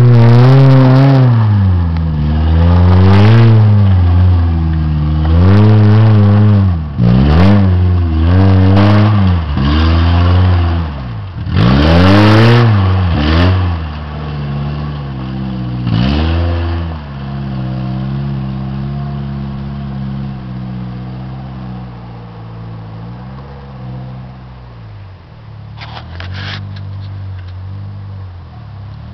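Suzuki Samurai engine revving up and down over and over under load as the 4x4 climbs a steep rocky trail, with a few sharp knocks and clanks. After about 17 seconds it settles into a steadier, lower drone that slowly fades.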